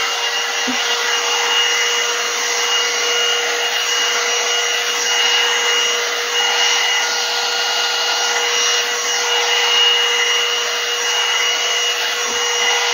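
Hot air brush (one-step dryer brush) blowing steadily: a rush of air over a steady motor whine, with the bristles rubbing as it is drawn through thick natural hair.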